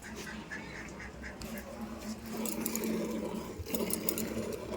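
Rapid rhythmic squirts of milk into a bucket as a cow is milked by hand, growing louder about halfway in.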